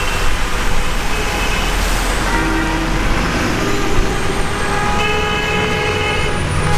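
Car horns honking over steady road traffic: several long horn blasts overlap, the longest lasting over a second near the end.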